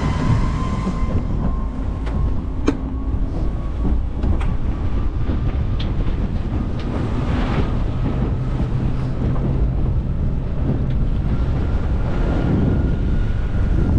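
Steady rush of wind on the microphone and water streaming past the hull as the Navier electric hydrofoil boat runs across choppy water. A faint high whine rises slightly in the first second, and there are a few light knocks of chop or spray about three and four seconds in.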